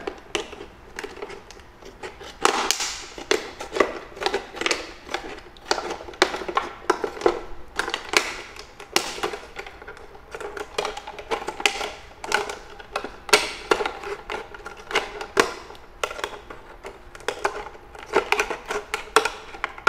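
Scissors snipping through a thin plastic drinking-water bottle: a run of irregular, crisp snips and crackles of the plastic, several a second.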